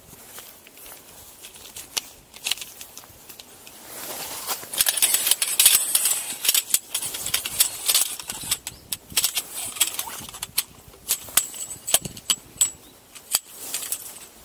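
Pup tent being pitched: rustling of tent fabric with many sharp clicks and taps from the gear being handled, the rustling densest from about four seconds in.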